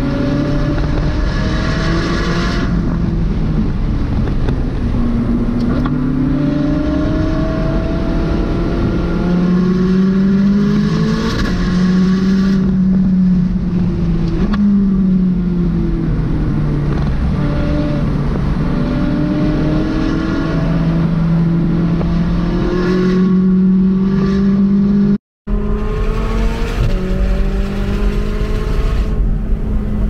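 McLaren 600LT Spyder's twin-turbo V8 driven hard on track, heard from inside the cabin. The engine pitch climbs through the gears, falls under braking about halfway through, then climbs again. The sound cuts out for a split second near the end.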